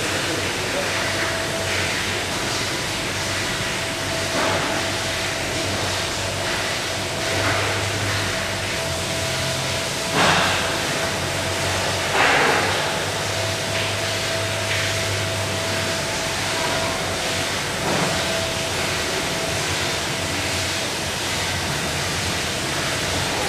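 Meyn automatic poultry evisceration line running: a steady machine din with a constant whine and a low hum. Occasional short metallic knocks, the loudest about ten and twelve seconds in.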